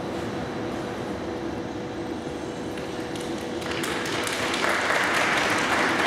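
Audience applauding in an ice-rink arena, starting about four seconds in and growing louder, with many separate claps audible.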